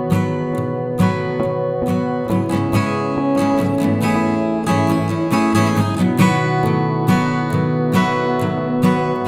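Background music led by a strummed acoustic guitar, with a steady, regular strumming rhythm.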